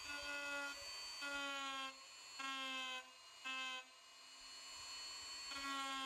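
Handheld electric rotary tool running with a small carving bit against the rim of a turned wooden cup: a steady high whine that swells louder in several short spells of about half a second to a second.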